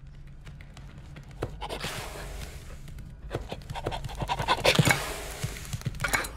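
A cartoon dog panting as it runs up, with quick clicks and scratches of its paws on the floor, getting louder as it nears and loudest about five seconds in.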